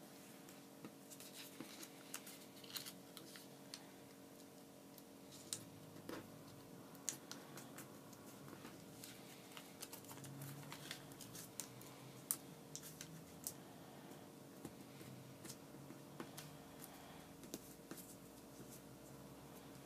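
Origami paper being folded and creased by hand: faint scattered crisp crackles, rustles and taps of paper, over a steady low hum.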